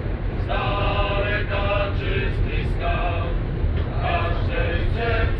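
Men's choir singing a patriotic song in sustained, chant-like phrases, starting about half a second in, over the steady low rumble of the Konstal 102Na tram.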